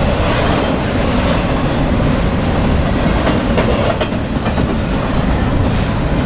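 Double-stack intermodal container train rolling past: a steady, loud rumble of steel wheels on the rails, with scattered clicks as the wheels pass over rail joints.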